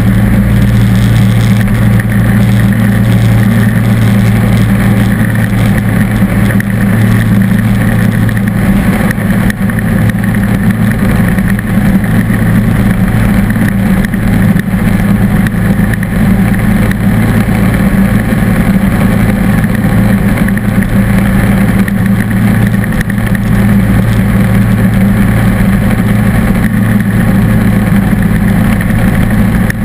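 John Deere D140 lawn tractor's engine running steadily under load while its front-mounted snowblower throws snow out of the chute.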